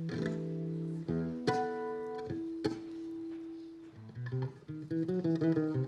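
Instrumental music led by plucked guitar: held chords struck every second or so, moving into a quicker picked pattern about four seconds in.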